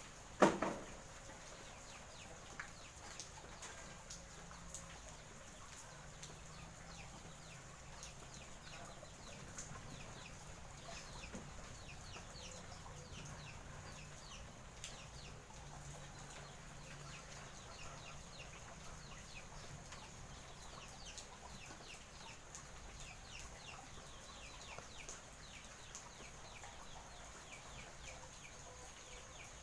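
Chickens clucking and peeping: many short, high calls over a steady faint hiss. A single sharp knock about half a second in is the loudest sound.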